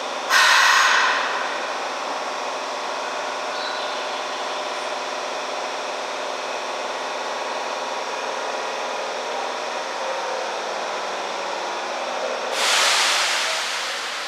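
Standing Nagoya Municipal Subway 2000-series train powered up at the platform: a steady electrical hum with several held tones, broken by a short loud hiss of released air about half a second in and a longer one near the end.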